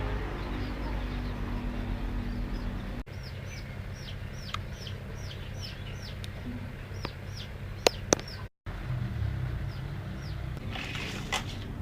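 A bird chirping over and over, short falling chirps about twice a second, over a steady low rumble.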